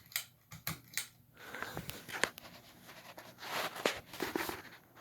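A few sharp clicks in the first second and a half, from a ceiling fan's pull-chain switch being pulled to high. Then a hissing, rustling noise with scattered clicks as the fan speeds up.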